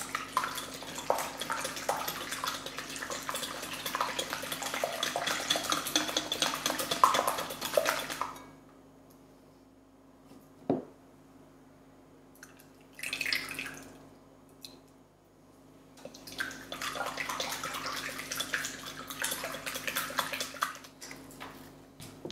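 Silicone whisk beating eggs and sugar in a glass bowl: rapid clicking and sloshing that stops about eight seconds in. A short splash of liquid being poured into the bowl follows a few seconds later, and then the whisking starts again.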